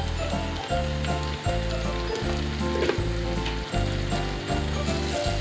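Sliced onions sizzling as they fry in hot oil in a pan, under background music with a steady bass beat.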